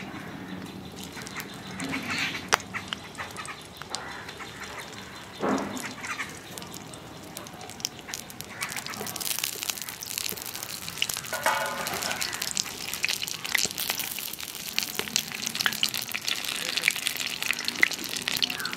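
Banana-leaf-wrapped bhetki fish parcels frying in hot mustard oil in a kadai. The sizzle is faint at first and grows into a steady crackle about halfway through. A few duck-like quacks sound in the background, one near the middle.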